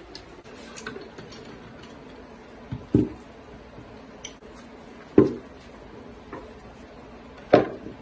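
Hollow knocks of turned wooden bowls being set down or knocked together: three loud ones a couple of seconds apart, the first just after a lighter tap, with faint ticks and clicks between.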